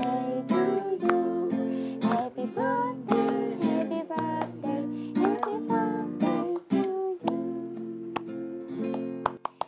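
Acoustic guitar strummed, with a man singing a gentle song over it; the music cuts off at the end.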